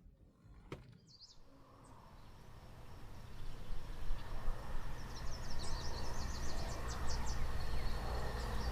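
Outdoor ambience: a low rumble that builds over the first few seconds, with small birds chirping in quick runs from about five seconds in and again near the end.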